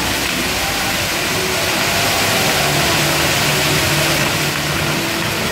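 Ground-firework wheel of a Maltese festa (ġigġifogu) spinning with its fountains of sparks burning, giving a loud, steady hiss.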